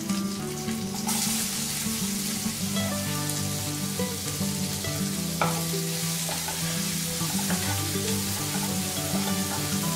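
Chopped onion sizzling in hot oil with garlic, cumin and chillies in a nonstick wok, stirred with a wooden spatula; the sizzle grows louder about a second in.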